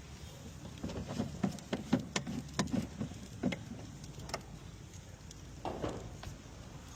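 A quick, irregular run of clicks and knocks, a dozen or so over about three seconds, then one softer cluster near the end, over a steady low rumble.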